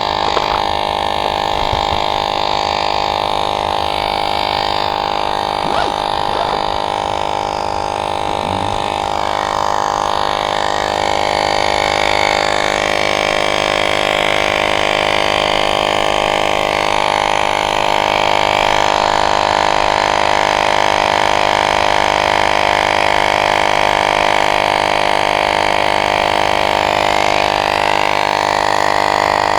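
Portable electric tire inflator running steadily with a constant droning hum, pumping air into an e-bike's front tire.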